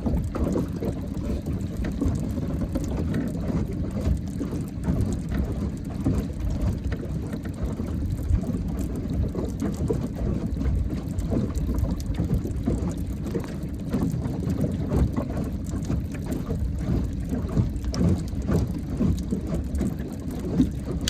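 Steady low rumble of a small boat out on a lake in the rain, with many light taps and clicks throughout.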